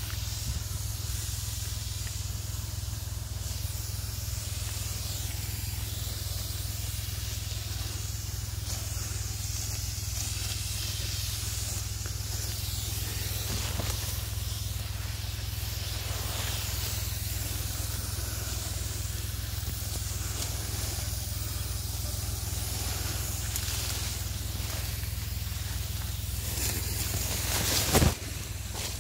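Tractor-mounted HTP pump sprayer running steadily, a constant low hum with a hiss of spray over it. Just before the end, a brief loud brushing as leaves rub against the microphone.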